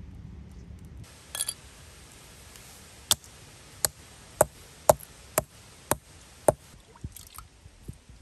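A hand-held hammerstone striking a flat stone anvil seven times, about twice a second, crushing a lump of cast iron prills into granules. A short clatter comes before the strikes and a few lighter clicks follow them.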